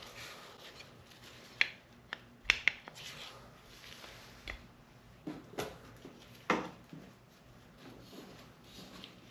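Irregular handling sounds of metal engine parts: a handful of sharp clicks and light taps in the first few seconds, then a few short scrapes.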